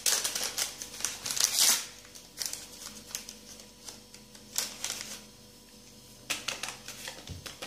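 Paper sachet of Alsa baking powder crinkling in short rustles as it is handled and emptied over flour, most of the rustling in the first two seconds and a few brief rustles after.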